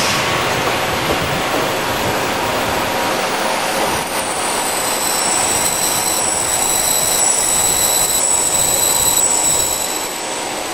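A model S-Bahn train running over the layout's track: a steady rolling rumble and hiss, joined by high thin tones from about four seconds in, which fade shortly before the end.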